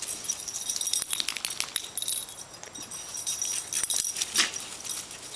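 Metal tags jingling on a running puppy's collar: quick, irregular high clinks in clusters as the dog bounds about, thinner for a moment in the middle.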